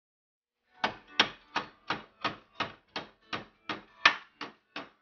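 Small hammer striking a round-steel spring rod clamped in a bench vise to shape its end: a steady run of about a dozen sharp metal strikes, roughly three a second, starting about a second in.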